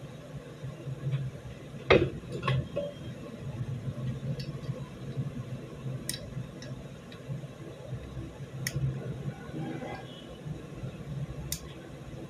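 Small steel parts of a Beretta 92FS pistol clicking and clinking as they are worked by hand and with pliers during disassembly: one sharp click about two seconds in, then single light clicks every few seconds, over a low steady hum.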